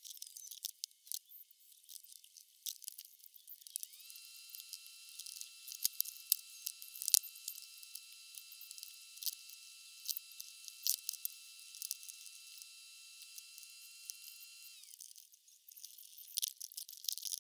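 Sharp clicks and knocks of wooden crib parts and metal hardware being handled during crib assembly. A steady high whine comes in about four seconds in and stops about four seconds before the end.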